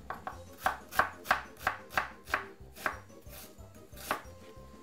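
Kitchen knife chopping half a white onion on a wooden chopping board: sharp knife strikes against the board, about three a second, spacing out in the last couple of seconds.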